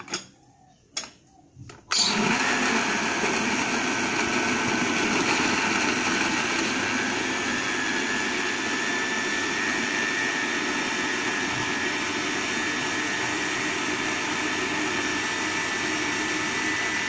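Countertop blender blending frozen banana with yogurt into an ice-cream mix. A few light knocks come as the jar is seated on the base, then about two seconds in the motor starts abruptly and runs at a steady, even pitch.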